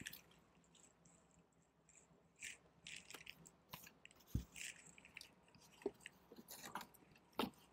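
Faint crinkling and light clicks of an LP jacket in a clear plastic outer sleeve being handled and turned over, with a soft knock about four seconds in.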